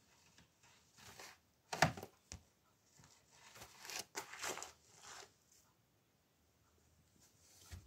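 Soft close-up rustling and crinkling, with a sharper scrape about two seconds in and a longer stretch of rustling around four to five seconds in.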